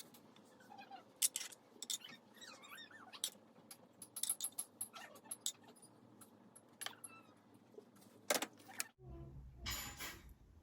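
Kitchen utensils and dishes clinking, a scattered series of sharp light clicks with a few brief squeaks. About nine seconds in, the background changes and a short rustling noise follows.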